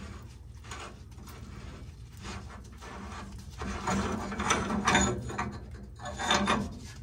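Pipe wrench working threaded black iron steam return pipe: a series of scraping, ratcheting metal strokes, loudest a little past the middle and again near the end.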